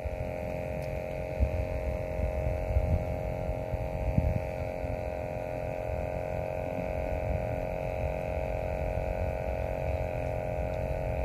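A steady droning hum over an uneven low rumble, with no distinct events.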